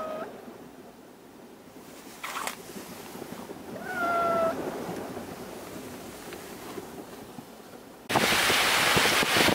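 A cat meows twice inside a car: the end of one call right at the start, and a short, level meow about four seconds in. About eight seconds in, a loud rush of storm wind cuts in abruptly.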